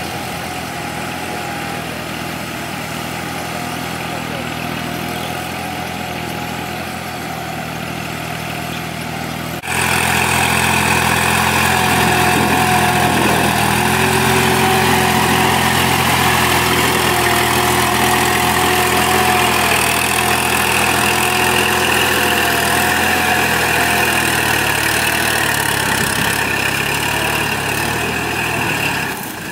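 Kubota farm tractor diesel engines running steadily under load, pulling disc plows through a flooded rice paddy. About ten seconds in, the sound jumps louder and closer as it switches to a second tractor.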